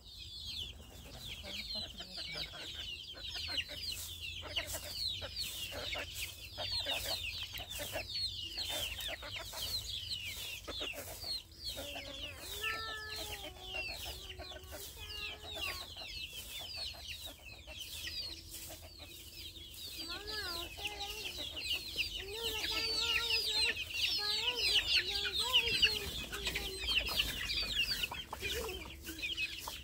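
A flock of backyard chickens clucking, with dense high chirping throughout and louder pitched clucks in the second half. A broom scrapes the dirt in regular strokes about once a second.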